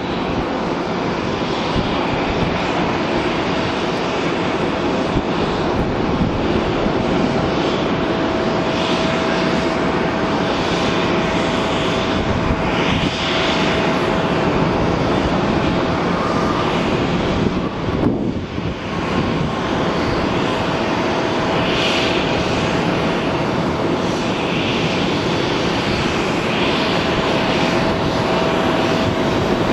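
Airbus A380's four Rolls-Royce Trent 900 turbofans climbing out after take-off: a loud, steady jet roar with a steady whine running through it. The roar briefly dips about two-thirds of the way through.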